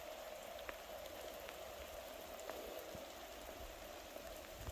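Light rain falling steadily, with a few faint ticks of single drops.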